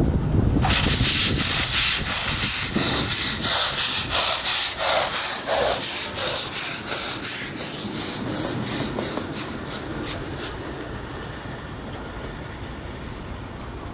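P36 steam locomotive's exhaust chuffing, about three beats a second, with a heavy hiss of steam; the chuffs stop about ten seconds in, leaving a low steady rumble.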